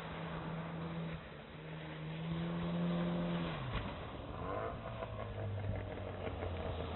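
Outboard motor of a small fishing boat running hard, its note rising slightly and then dropping sharply about halfway through as the throttle comes off, running on at a lower pitch. Surf washing on the beach underneath.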